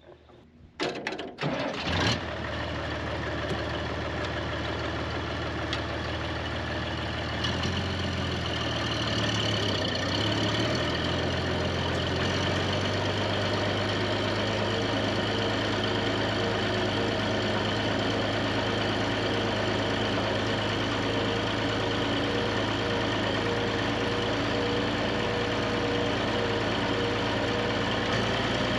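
Tractor diesel engine starting about two seconds in, then running steadily; its speed rises around eight seconds in and it settles at a higher steady speed.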